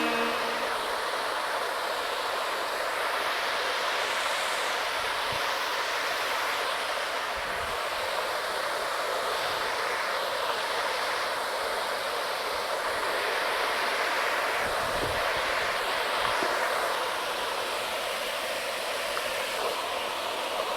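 Steady rush of a waterfall and its stream of falling water, with a few faint low knocks.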